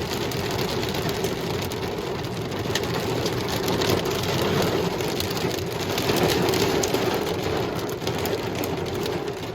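Heavy rain pouring down steadily, with scattered sharp ticks of drops striking hard surfaces.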